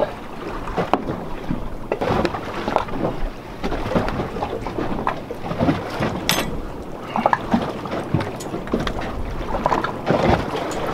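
Wind buffeting the microphone and water slapping against a small boat's hull, with irregular light knocks of a knife slicing a red onion on a cutting board.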